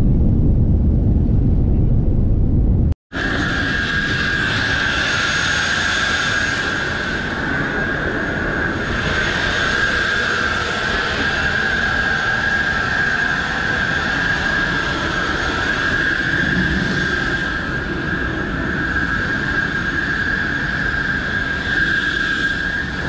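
Low rumble inside a jet airliner's cabin during the takeoff roll, then, after a sudden cut about three seconds in, a parked jet airliner heard from the apron: a steady high whine over a continuous rushing noise.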